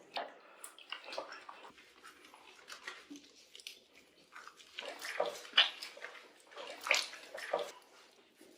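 Bath water splashing and sloshing in irregular bursts as a cat is washed in a tub, with sharper splashes about five and a half and seven seconds in.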